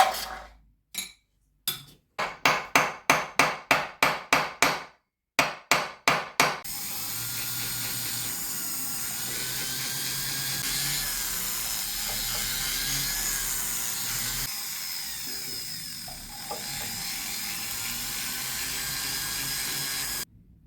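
Hammer blows on metal as a gold ring is forged: a few single strikes, then a quick run of about four blows a second. After that comes a steady hissing, whirring noise that cuts off suddenly near the end.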